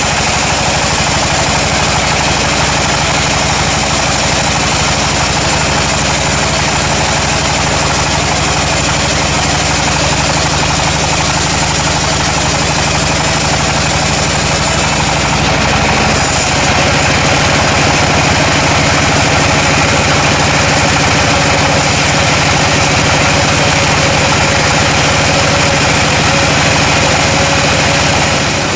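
An engine running steadily at an even speed, with a constant mechanical drone and hiss. A little past halfway the high hiss thins out slightly.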